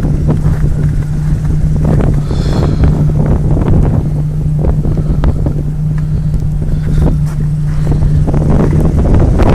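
Snowstorm wind gusting against the microphone, with a steady low hum underneath that stops near the end.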